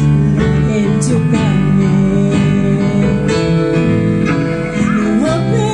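Instrumental break in a gospel worship song, played on an electronic keyboard.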